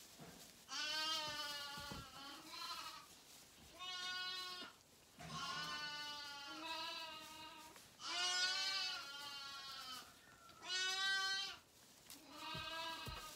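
Zwartbles sheep bleating over and over, about eight calls each lasting around a second, with short pauses between them.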